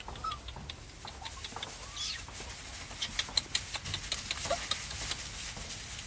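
Faint, short, high squeaks and chirps from small animals, coming thickest about halfway through, over a steady low background hiss.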